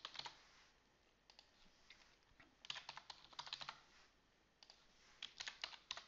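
Computer keyboard being typed on: faint key clicks in a few short bursts with pauses between them, as single words are entered.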